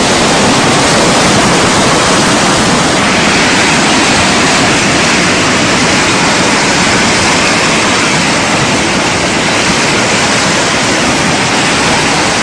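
Muddy flash-flood torrent rushing past, a loud, steady rush of water with no let-up.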